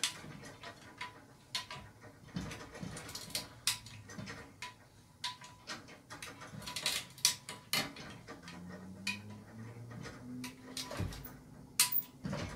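Scattered metallic clicks and knocks from a chain hoist as an engine hanging on its chain is lowered into a car's engine bay.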